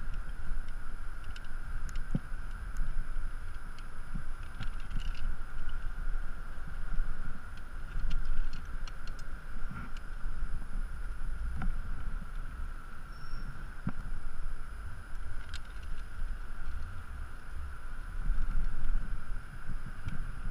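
Wind rumbling on a body-worn camera's microphone high on a building's outside wall, swelling and easing, under a steady faint high hum and a few sharp clicks.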